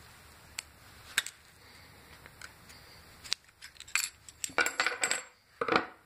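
A metal washer being pried off a molded plastic knob with a screwdriver: a few light metal clicks, then a busier run of clinks and clatter in the second half as the washer and the screwdriver are put down on the plywood bench.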